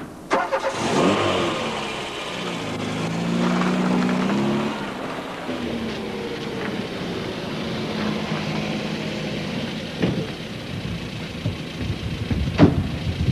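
A car door shuts, then a car engine revs as the car pulls away and runs on steadily. Sharp knocks about ten seconds in and again near the end.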